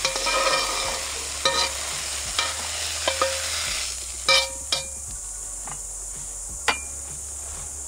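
Metal spatula scraping and knocking against a metal wok as stir-fried noodles are tipped out onto a plate, the hot pan still sizzling. Several sharp clanks ring briefly, and the sizzle dies down about halfway through.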